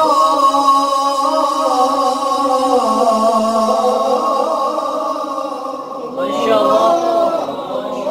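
A man's voice in melodic Quran recitation (mujawwad style), sung into a microphone: one long held note that steps down slightly about three seconds in, then a quick ornamented run near the end.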